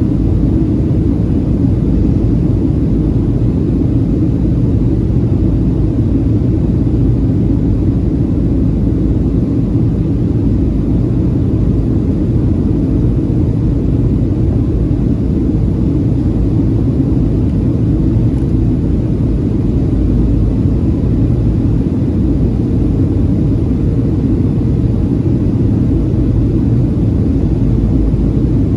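Cabin noise of a Boeing 737-700 airliner in flight on descent: a steady low rumble of airflow and its CFM56-7 turbofan engines, with a faint steady hum on top and no change through the stretch.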